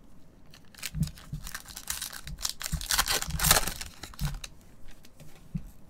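Foil wrapper of a 2021 Panini Mosaic baseball hobby pack being torn open and crinkled. It is a run of crackling rips starting about a second in and loudest about three and a half seconds in, with a few soft handling knocks, dying down to light rustles near the end.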